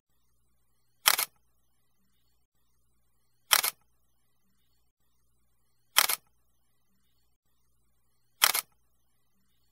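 Camera shutter sound effect, a quick double click repeated four times about two and a half seconds apart, with near silence between.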